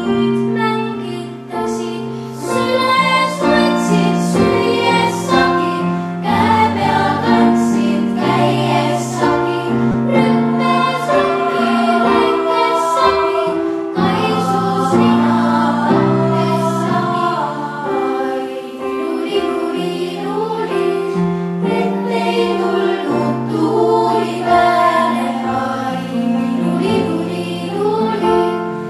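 Choir of young girls singing an Estonian song, with instrumental accompaniment holding low notes beneath the voices.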